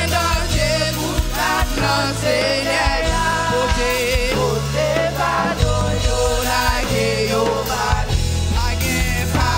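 Haitian Creole worship song performed by a live band: a woman sings lead with a wavering, vibrato-rich voice over an electric bass holding low notes that change about once a second, with drums underneath.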